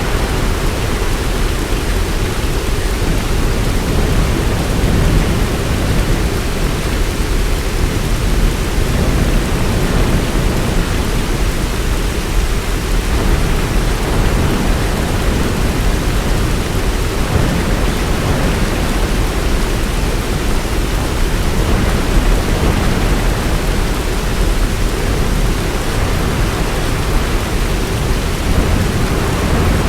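Heavy rain falling steadily: a dense, even hiss with a steady low rumble beneath it.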